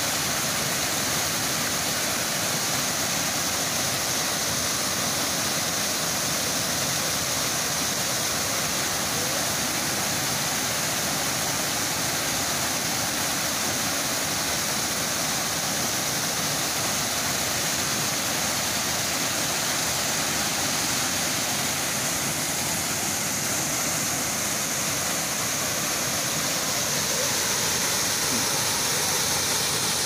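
Waterfall pouring over rock ledges and splashing into a pool below: a steady, unbroken rush of water.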